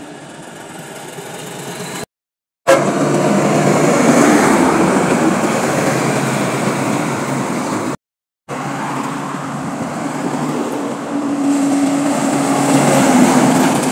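Semi-truck diesel engines running and moving off, in three short clips with abrupt cuts about two and eight seconds in. The last truck gets louder as it comes closer.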